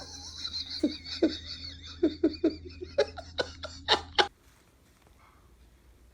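A person laughing in a quick run of short bursts over a steady low hum, cut off abruptly about four seconds in.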